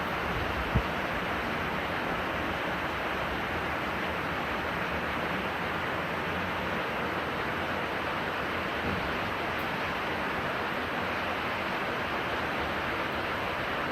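Steady rain falling, an even hiss that runs on unchanged, with a single sharp tap less than a second in.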